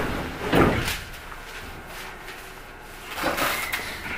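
Sliding doors of a Keio 1000 series commuter train car thudding shut, heard from inside the car, with a second, softer thump a little over three seconds in.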